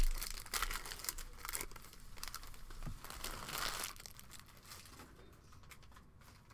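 Foil wrapper of a trading-card pack crinkling and rustling as it is torn open and handled. It is busiest in the first four seconds, then gives way to fainter sounds of cards being handled.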